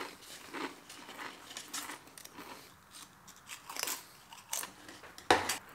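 Pringles crisps being bitten and chewed: a run of irregular crisp crunches, with the loudest bite near the end.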